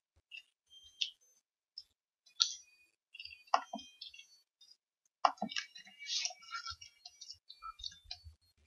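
Computer mouse clicks and keyboard key presses: scattered single sharp clicks, coming thicker in the second half as typing begins.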